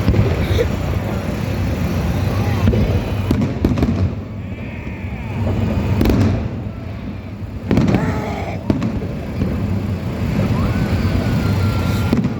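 Aerial fireworks going off: a continuous low rumble of booms, with sharper bangs at intervals.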